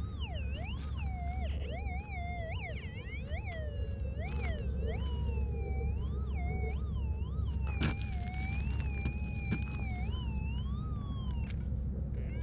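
Background music: a wavering, gliding lead melody over a steady low drone.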